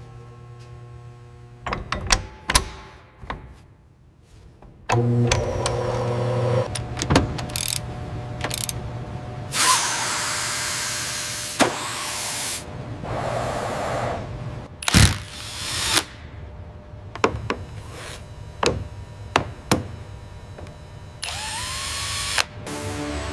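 A string of power-tool and workshop sounds: sharp clicks and metal knocks, and several loud bursts of rushing hiss, the longest about ten seconds in. Near the end a short whir rises in pitch.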